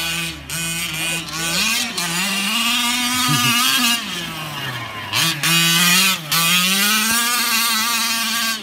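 Small two-stroke gas engine of a Losi WRC RC rally car, revving up and down as it is driven hard. The throttle is chopped briefly about five and six seconds in.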